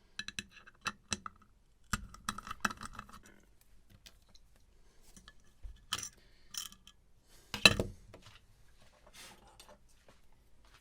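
Small metal hard-drive parts and tools clicking, tapping and clinking against each other and a work surface during disassembly, with one louder knock about three-quarters of the way through.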